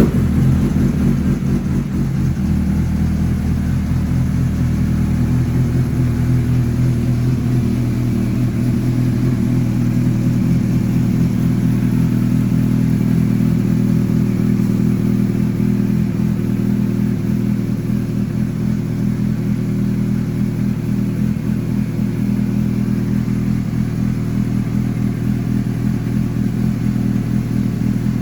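Suzuki GSR 750's inline-four engine with an SC Project exhaust idling steadily on a cold start, just after firing up.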